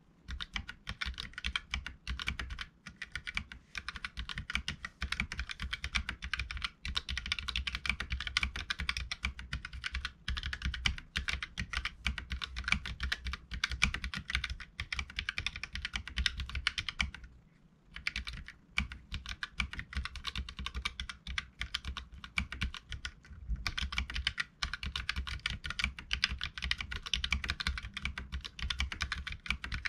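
Typing on a Keychron K3 mechanical keyboard with Gateron Red linear switches: rapid, continuous keystroke clicks and clacks, with a brief pause a little past the middle.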